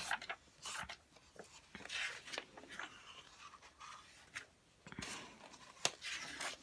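Pages of a glossy magazine being turned, the paper rustling in short brushes, with a sharp tap near the end.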